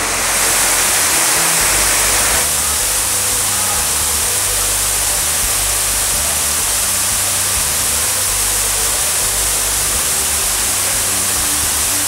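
Steady rushing noise of water, with soft sustained background music underneath; the rushing changes a little about two seconds in.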